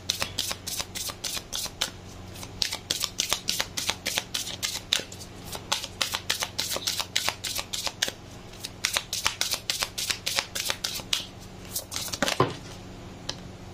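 A deck of tarot cards being shuffled by hand: the cards slap and flick against each other several times a second, in runs broken by short pauses.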